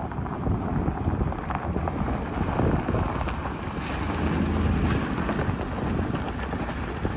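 Ford F-350 with a 5.4-litre Triton V8 driving slowly past over gravel: engine running under the crunch of tyres on loose stone. Loudest about four to five seconds in as the truck passes close.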